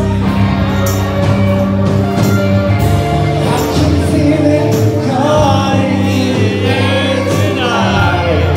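Loud amplified music with singing over sustained bass notes and regular percussion hits.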